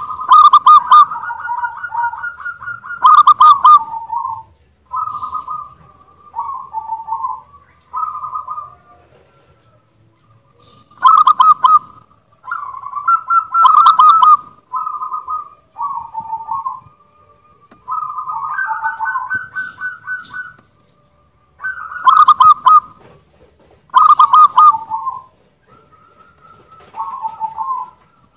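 Zebra dove (perkutut) cooing in a series of rapid, stuttering trilled phrases, each a second or two long with short pauses between, about a dozen in all. The loudest notes hit the top of the recording's range and distort.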